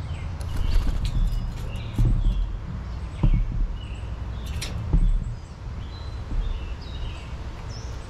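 Several small birds chirping with many short, high calls, over a low rumble broken by a few dull thumps.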